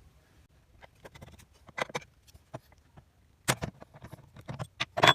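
Irregular clicks, taps and knocks of hand work on a mitre saw's blade guard and fittings, sparse at first and coming faster and louder in the last couple of seconds.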